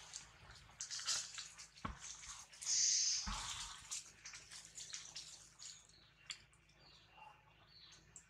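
Leaves and twigs rustling and crackling as a monkey climbs through a tree, with a loud rustle about three seconds in and two dull thumps, one about two seconds in and one just after three seconds.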